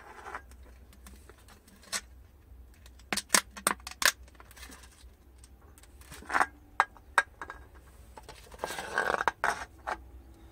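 Aluminium beer cans handled on a tiled floor: scattered sharp clicks and knocks as they are picked up, turned and set down, with a cluster of them after about three seconds and a scraping stretch lasting under a second near the end.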